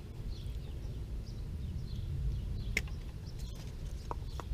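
Faint bird chirps over a low steady rumble, with a sharp metallic click about three seconds in and two short ticks near the end from pliers working electrical wire into a disconnect box.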